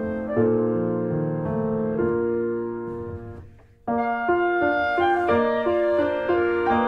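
Background piano music with slow, held notes. It fades almost to silence about three and a half seconds in, then starts again suddenly.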